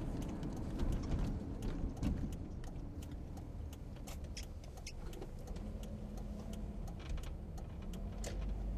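Car interior noise while driving: a steady low rumble of the engine and tyres heard inside the cabin, with frequent small clicks and rattles.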